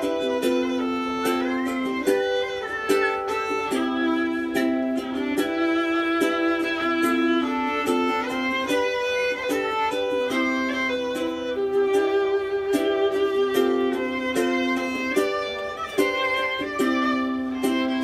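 Live violin playing a melody with slides, over a strummed acoustic guitar keeping a steady rhythm.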